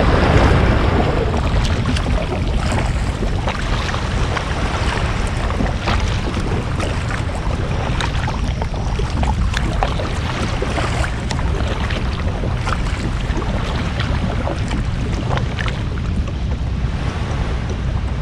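Wind buffeting the microphone over water lapping and sloshing around a small fishing boat, with scattered small knocks and splashes.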